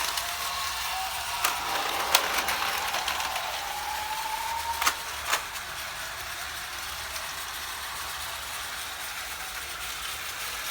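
Plarail battery-powered toy train running on its plastic track, a steady small-motor whir with a few sharp clicks in the first half.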